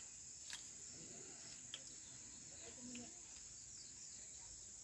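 Faint, steady high trill of crickets, with a couple of soft clinks from eating off steel plates.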